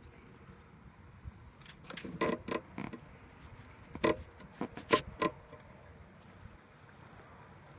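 A handful of short, hollow knocks and thumps in two clusters, about two seconds in and again about four to five seconds in, as a large plastic lake-weed mat is pushed and handled in shallow water.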